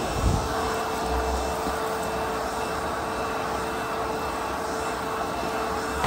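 ProTeam Super Coach commercial vacuum running steadily with a constant motor whine while its floor tool is pushed over carpet. A brief low thump comes just after the start.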